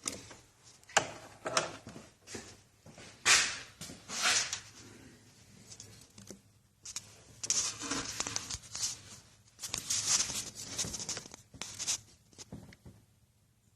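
Irregular rustling, scraping and clicking handling noises, coming in uneven bursts with short pauses.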